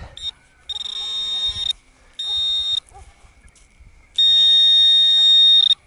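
Minelab Equinox 800 metal detector sounding its high, buzzy target tone in three bursts, the last and longest about a second and a half, as the coil passes over a target reading about 10 on its ID scale.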